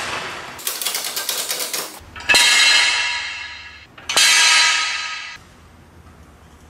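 Steel jack stands and a floor jack as a raised pickup is let down: a fast rattle of clicks, then two loud metal clangs about two seconds apart, each ringing out for more than a second.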